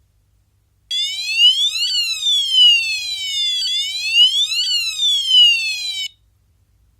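Devolo Home Control Z-Wave siren sounding a high, buzzy wailing alarm tone. It rises and falls in pitch twice over about five seconds, then cuts off suddenly.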